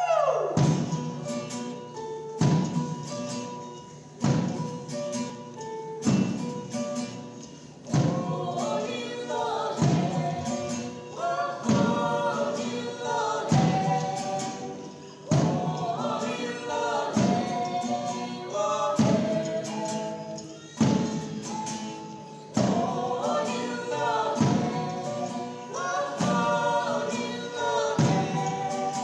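Live band playing a Yimchunger Naga fusion song: strummed acoustic guitars over a heavy drum beat every two seconds or so. A woman's voice and other voices come in singing about nine seconds in.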